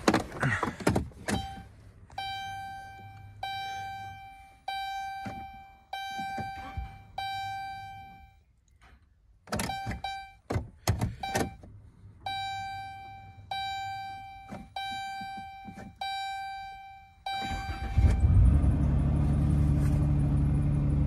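A 2012 Dodge Grand Caravan's warning chime repeats about once a second, with a few clicks and thunks, while the owner tries to start the van after cleaning corroded battery cables. Near the end its 3.6-litre V6 cranks briefly, starts and settles into a steady idle.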